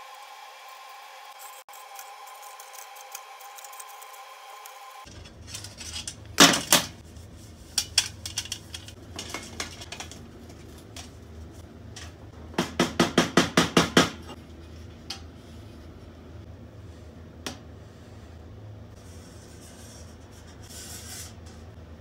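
Thin tin cans and a sheet-metal cylinder clanking and knocking as they are handled on a steel workbench, with scattered clicks and a quick run of about eight sharp metallic strokes a little past the middle. A faint steady hum is heard over the first few seconds.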